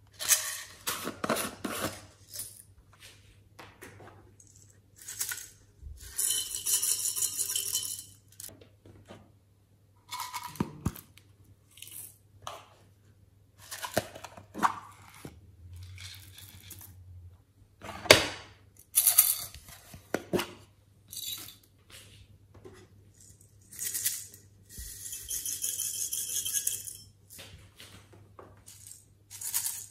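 Small plastic containers of slime toppings being handled and opened: a run of clicks and taps of plastic lids. Twice a dry rattle of small granules or glitter pouring lasts two to three seconds.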